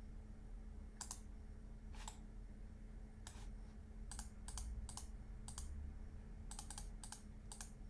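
Irregular clicks from a computer mouse and keyboard, about a dozen, some coming in quick pairs, over a faint steady low hum.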